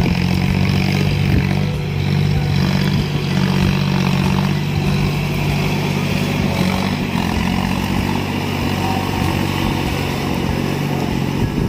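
John Deere 5050D tractor's three-cylinder diesel engine running steadily under load while it pulls a rotavator through wet paddy-field mud.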